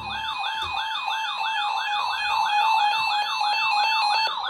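Electronic siren-style alert sound sweeping rapidly up and down, about three times a second, over a steady tone. It is the alert that heralds an incoming emergency weather warning.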